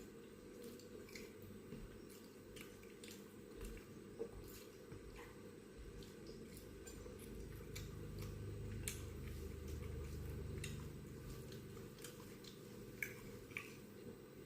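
A person chewing food with soft, wet mouth clicks and smacks at irregular intervals.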